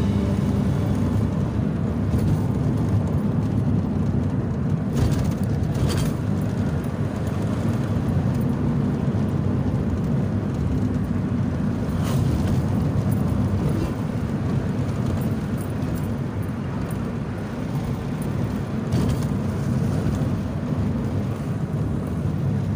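Steady rumble of a car driving on a paved road, heard from inside the cabin: engine and tyre noise with a few light knocks.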